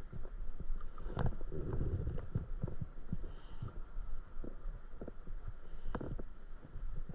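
Small waves slapping against the hull of a stand-up paddleboard: irregular low knocks and thumps over a low rumble.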